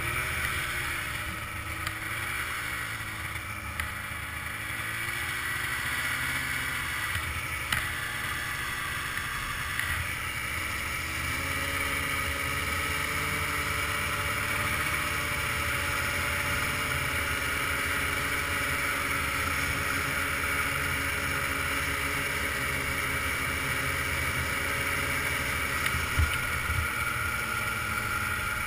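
Ski-Doo touring snowmobile engine running under way. Its pitch wavers up and down with the throttle for the first ten seconds or so, then holds steady at cruising speed. A few light knocks come through along the way.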